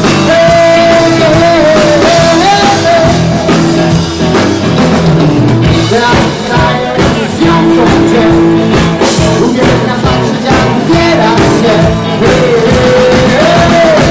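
Live rock-and-roll band playing, with electric guitars and a drum kit.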